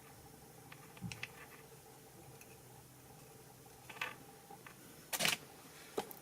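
Small plastic model-kit parts being handled and fitted together: a few light clicks and taps, with one short scraping rustle a little past halfway, the loudest sound.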